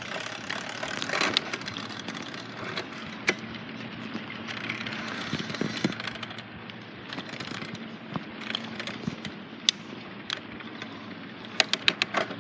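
Bicycle riding noise: a steady rolling rumble with wind on the microphone, scattered rattles and clicks, and a quick run of sharp clicks near the end.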